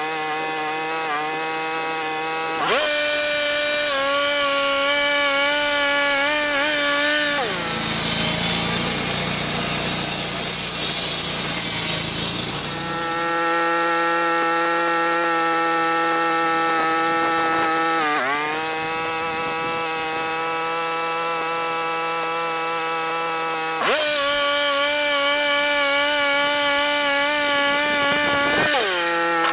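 Engine-driven sawmill running steadily while milling a pine log into boards. A louder, rasping stretch of saw-in-wood noise comes about a third of the way in, and the engine pitch dips briefly twice later on.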